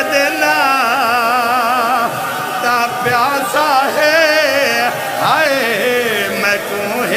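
A single voice singing a Shia mourning lament, holding long notes with strong, wavering vibrato; a little over five seconds in the pitch swoops up and falls away.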